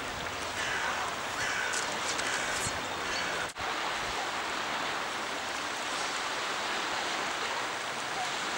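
Steady rush of a river's flowing water, with a short dropout about three and a half seconds in.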